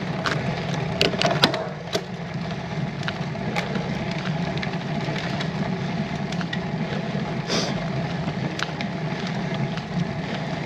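Wind buffeting the bike-mounted camera's microphone as a steady rumble, with scattered clicks and crackles from the bicycle on a gravelly road climb.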